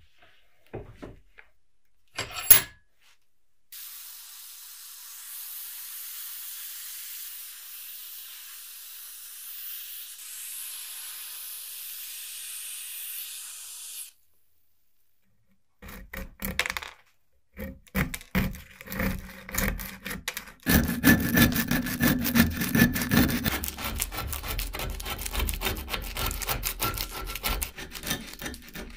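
Rough scraping and rubbing on an old rusty cleaver. It starts as quick separate strokes and becomes continuous rasping, and comes after a few clicks and a steady hiss of about ten seconds.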